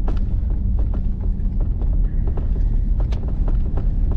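Ram pickup truck heard from inside the cab, driving over rutted, compacted ice: a steady low rumble of engine and road with irregular knocks and rattles as the truck bounces through the ruts.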